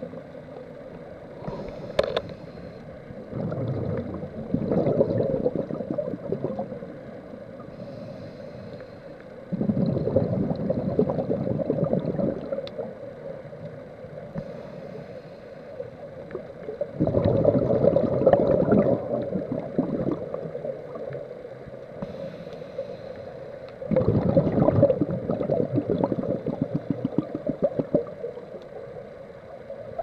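A scuba diver's exhaled bubbles from the regulator underwater: four long bubbling exhalations, about one every seven seconds, with quieter stretches and a faint hiss of inhaling between them.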